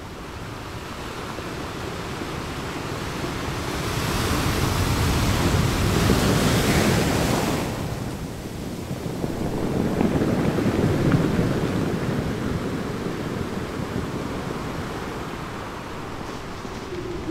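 Sea waves surging in, two big swells: the first builds from about four seconds in and falls away near eight, the second peaks around ten to twelve seconds.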